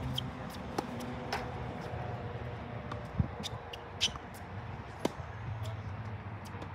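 Tennis balls struck by rackets and bouncing on a hard court during a doubles rally: five or so sharp pops at uneven intervals, over a low steady hum.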